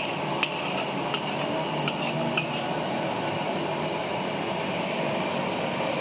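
A metal spatula clinking lightly against the pan and aluminium tray about five times in the first few seconds as the sauced stew is scraped out, over a steady background hum.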